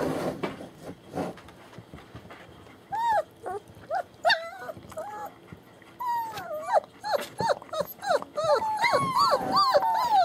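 Three-week-old German Shepherd puppies whining and whimpering in short cries that rise and fall in pitch. The cries start about three seconds in, after some rustling, and from about six seconds several puppies cry at once, overlapping.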